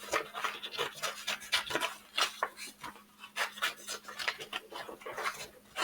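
Scissors cutting through coloured paper, a run of short irregular snips and paper rustle.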